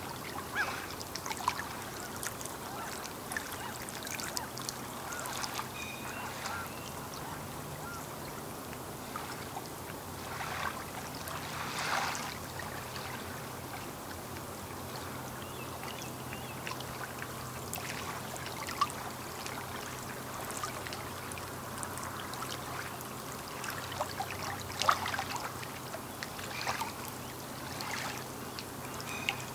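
Small waves lapping irregularly against the lakeshore, with soft splashes and gurgles and a bigger slosh about twelve seconds in and again near twenty-five seconds.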